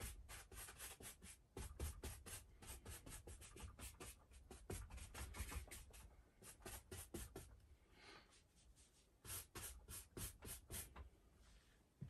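Wide flat brush scrubbing thin oil paint onto canvas: faint, quick rasping strokes, about three or four a second, with a short break about two-thirds of the way through.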